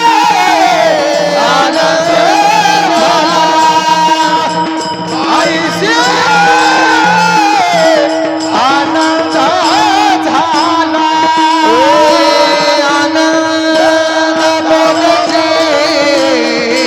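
A male kirtan singer singing a Marathi devotional bhajan melody in a high voice, with long held notes and quick wavering ornaments over a steady drone.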